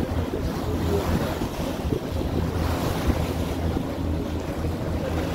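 Lake passenger ferry under way: a steady low engine hum under the rush of water along the hull, with wind buffeting the microphone.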